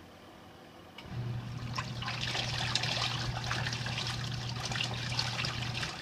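Wash tub of an XtremePowerUS twin-tub portable washer starting up about a second in: a steady motor hum with the pulsator churning a load of two pairs of jeans through the water, splashing and sloshing. The motor stops shortly before the end.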